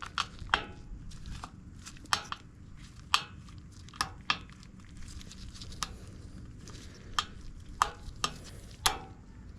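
Irregular sharp plastic clicks and taps, about a dozen, as the snap-in retaining tabs of a mower dash switch are pushed in and pried up.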